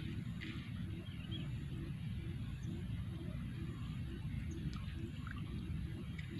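Steady low rumble of wind buffeting the microphone in open country, with a faint regular pulse about twice a second and a few faint bird chirps.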